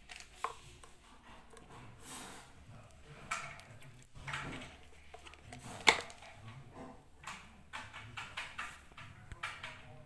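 Plastic washing-machine drain pump parts being handled: scattered clicks, scrapes and rustles as the pump motor is worked free of its housing, with one sharp click about six seconds in and a run of small clicks near the end.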